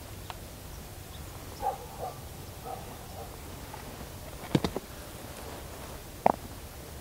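Three short, faint animal calls in the first three seconds, then a quick run of sharp clicks about four and a half seconds in and one sharp knock near the end, over a low steady rumble.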